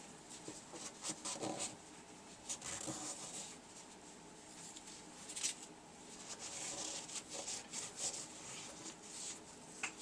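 Small metal and plastic fuel-pump parts being handled and rubbed clean by hand: scattered light clicks and scratchy rubbing.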